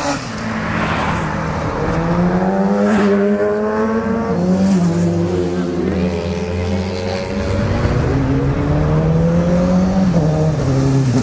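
Sport motorcycle engine accelerating hard, its pitch climbing steadily and dropping sharply at gear changes about four seconds in and again near the end.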